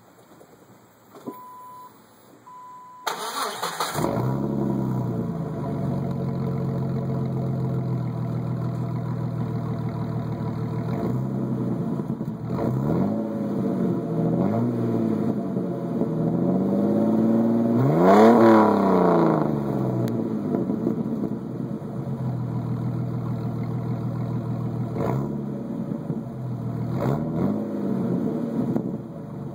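Jeep Wrangler 4.0-litre straight-six starting about three seconds in, then idling and blipped several times, with the biggest rev about halfway through. It runs through a 2¼-inch straight pipe in place of the muffler, with the catalytic converter, resonator and stock manifolds kept. Before the start, a high electronic beep sounds twice.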